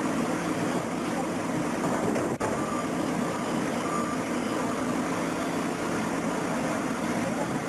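Backhoe loader's diesel engine running steadily under load while its hydraulic chain-saw arm cuts into a stone block. A few faint short beeps come in around the middle, and there is a single click about a third of the way in.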